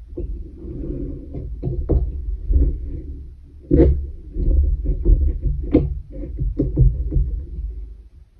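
Soft knocks and rubbing as a long metal weaving needle is worked back and forth through the yarn on a wooden pin loom, with low irregular thumps from the loom and hands on the table. Two sharper taps come about four and six seconds in.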